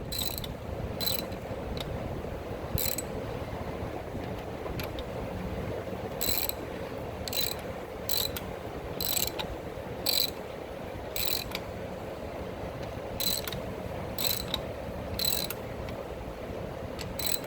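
Hand ratchet wrench clicking in short bursts, one back-swing about every second with a pause of a few seconds near the start, as bolts on a Cub Cadet 70 transaxle case are run down tight.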